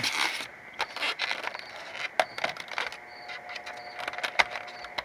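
Styrofoam packing insert and cardboard box being handled, giving scattered short clicks and scrapes.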